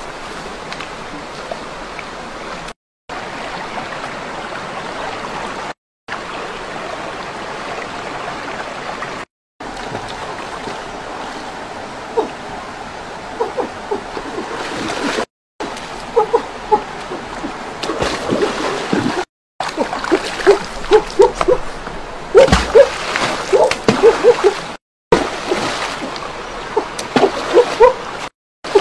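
A shallow stream flowing, then water splashing and sloshing in quick, irregular bursts as someone moves through it, growing busier and louder over the second half. The sound drops out briefly every few seconds.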